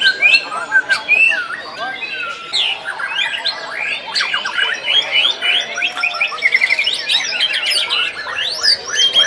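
Several white-rumped shamas (murai batu) singing at once, a dense overlapping chorus of varied whistles, sweeping notes and fast trills.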